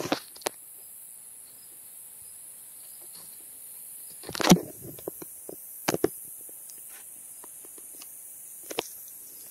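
Scattered handling clicks and knocks, the loudest a short clatter about four and a half seconds in, over a steady faint high hiss of insects.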